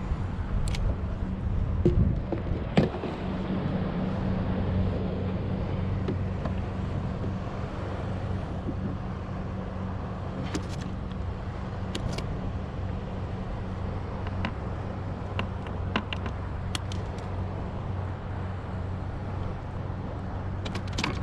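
A steady low motor hum, with a couple of knocks about two to three seconds in and scattered sharp clicks later.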